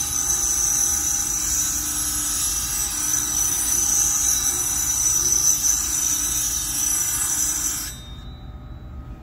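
3/32-inch tungsten electrode ground to a cone point on the Piranha III grinder's self-contained diamond wheel while it is turned slowly in a pin vise: a steady high-pitched grinding hiss. It cuts off abruptly near the end, leaving a low hum.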